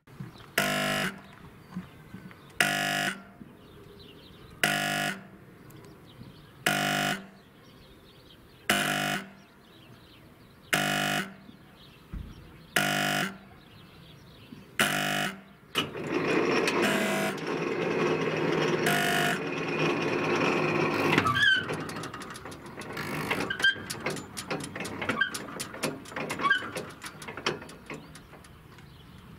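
Warning horn of a Soviet-type level-crossing signal sounding short blasts of about half a second, one every two seconds, ten times. The last two blasts sound over a louder, even rushing noise that begins about sixteen seconds in and lasts about five seconds; after it come irregular clicks and knocks that get denser near the end.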